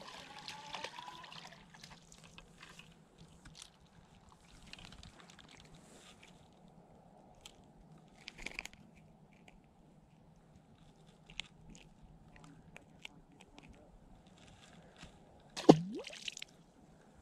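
Faint clicks and rustles of a small crappie being handled and unhooked, then one sharp plop with a quick falling tone as the fish is dropped back into the lake about a second and a half before the end.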